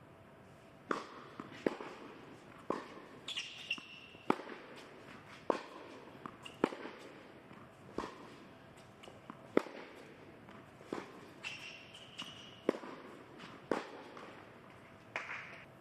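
Tennis rally on an indoor hard court: sharp racquet strikes and ball bounces about once a second, with a couple of brief sneaker squeaks on the court.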